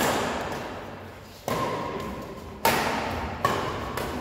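Badminton rackets striking a shuttlecock in a rally: four sharp hits, about a second or so apart, each followed by the echo of a large hall.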